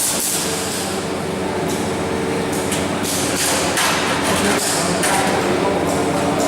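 Welding workshop noise: a steady machine hum with bursts of hiss coming and going, and a few knocks.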